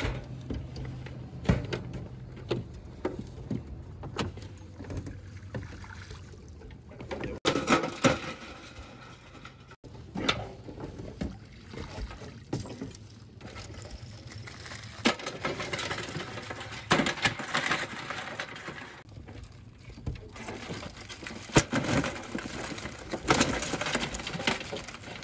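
Wire crab trap being hauled aboard by its rope: water splashing and dripping off the mesh, and the wire cage knocking and clattering against a galvanized washtub as blue crabs are shaken into it, with scattered sharp knocks throughout.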